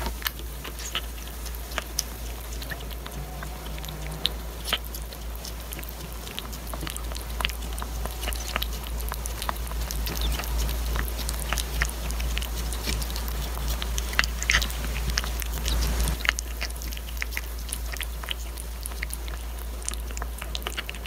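Kitten chewing and licking chunks of wet canned beef: a steady string of small wet clicks and smacks. A steady low hum runs underneath.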